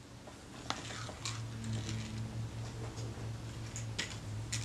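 A few faint, sharp clicks and taps of small metal tools and a plastic parts dish being handled on the work surface, over a low steady hum.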